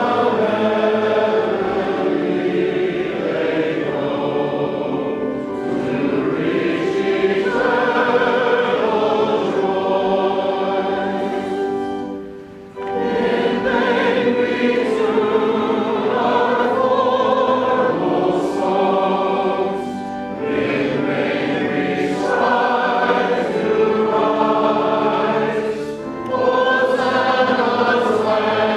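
A choir singing a hymn in long, sustained phrases, with a brief pause between lines about twelve seconds in and shorter breaks later on.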